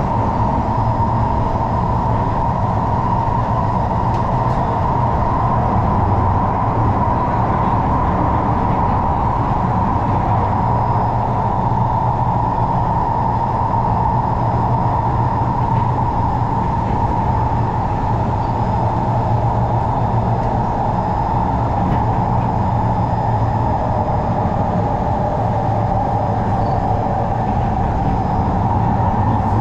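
Singapore MRT train running between stations, heard from inside the carriage: a steady rumble with a constant whine.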